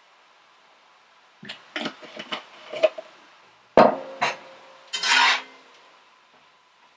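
A few short rasping strokes, then a sharp knock with a brief ring about four seconds in, followed by a long scrape of a utensil stirring vegetables in a cast iron skillet.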